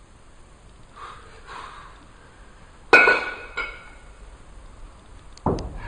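Kettlebell training: a sharp metallic clank with a brief ringing tone about three seconds in, a smaller knock just after, and a heavy dull thump near the end. Two soft breaths come first.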